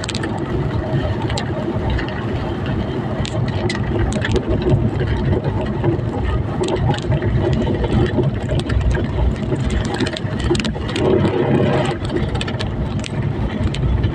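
Vehicle engine running steadily with road noise, with scattered clicks and knocks.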